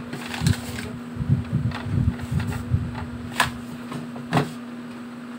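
Makeup containers and small items being handled and set down on a desk: a run of light knocks and clicks, with two sharper clicks in the second half, over a steady low hum.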